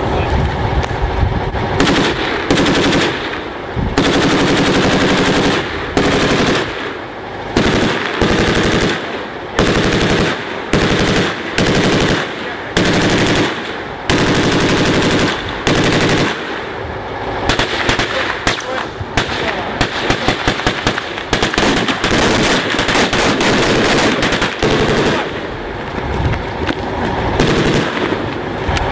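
Machine-gun fire in repeated long bursts, with short pauses between them.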